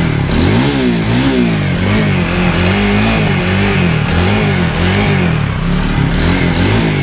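TVS Apache RTR 4V's single-cylinder engine being revved in repeated quick throttle blips, its pitch rising and falling about once every half second or so. The silencer's two internal pipes have been welded together, and the exhaust is heard to be free of the rattle the owner calls "no sound at all".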